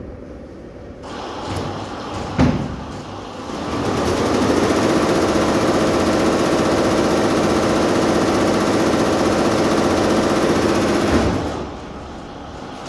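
Multi-head computerized embroidery machine running: a rapid, steady clatter of its stitching heads, loud from about four seconds in and dropping back shortly before the end. A single sharp knock comes about two seconds in.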